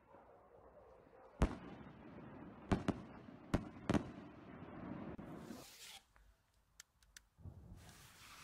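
Distant aerial firework shells bursting, fired from a mortar tube: a sharp bang about a second and a half in, then four more cracks over the next two and a half seconds, and a short hiss a little later.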